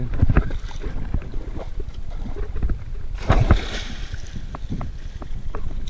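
Hooked alligator gar thrashing and splashing at the surface beside a kayak, with the biggest splash about three seconds in. Low rumble and a few light knocks run underneath.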